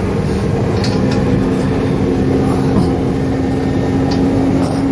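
Steady drone of a heavy engine running on a construction site, with a steady hum that sets in about a second in and a few faint light clicks.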